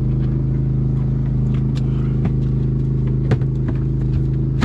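A motor on the boat running steadily at an even, constant hum. A few sharp knocks sound on the boat over it, the loudest just before the end.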